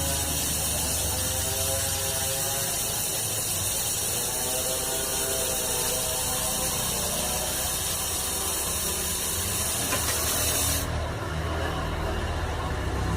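Steady, strong hiss of a gas jet during refrigerator pipe brazing and flushing work, cutting off suddenly near the end.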